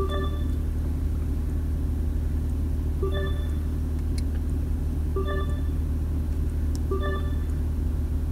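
Four short electronic beeps from a Toyota Crown Hybrid's infotainment touchscreen as its menus are tapped through, spaced about two seconds apart, over a steady low cabin rumble.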